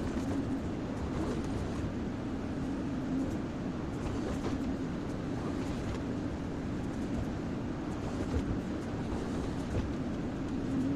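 Kobelco SK140XM hydraulic excavator's diesel engine running steadily, a constant low drone with no sharp knocks.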